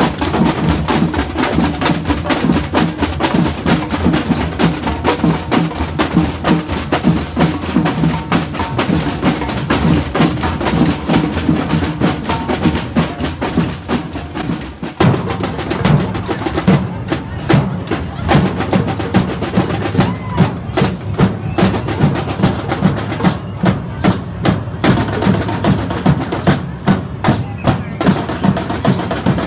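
Samba percussion band drumming a fast, steady groove of bass drums and snare drums. About halfway through the pattern changes, with sharp, evenly spaced hits standing out.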